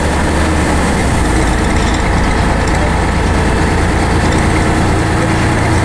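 Scania N113CRB bus's rear-mounted diesel engine and Voith automatic drivetrain heard from inside the saloon, running steadily as the bus drives along. There is a low engine drone whose deepest note shifts about a second in.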